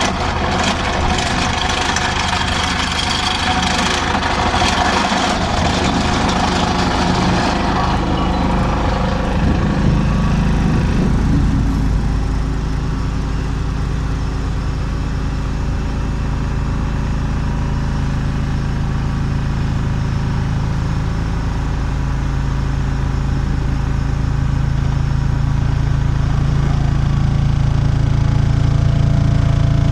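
Excavator-mounted vibratory hammer driving a steel sheet pile, with a steady, loud low drone. For the first several seconds a harsh rattling noise rides over it, then dies away about ten seconds in, leaving the steady drone.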